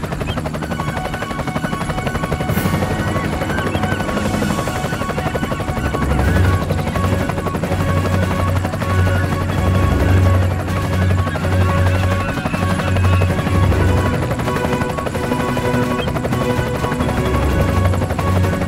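Background music with sustained held tones, joined by a pulsing bass beat about six seconds in.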